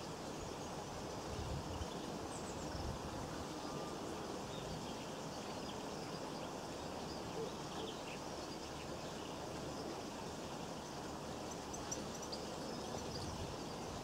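Steady outdoor background hiss with faint, scattered short high bird chirps, a few more of them near the end.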